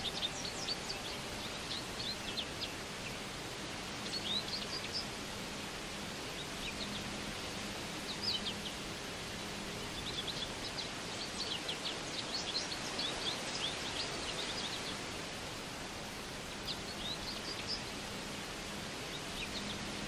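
Birds chirping in scattered clusters of short, quick high notes over a steady background hiss.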